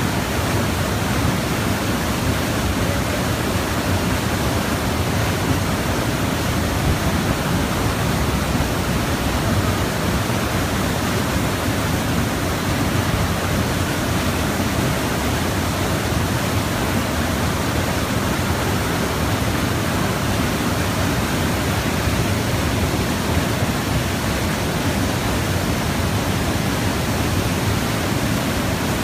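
Steady rushing noise of water flowing through a small hydro turbine that drives an alternator.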